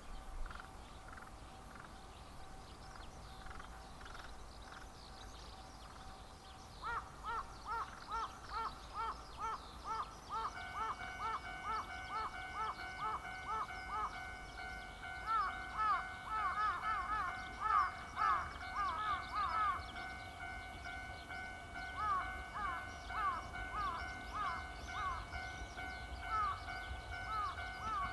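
Japanese railway level-crossing warning bell ringing, an electronic clang repeated about twice a second. It starts about seven seconds in, and about ten seconds in a second bell joins with steady tones under it, the two overlapping.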